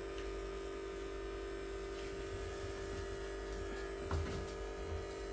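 Corded electric hair clippers running with a steady hum while trimming hair around the ear.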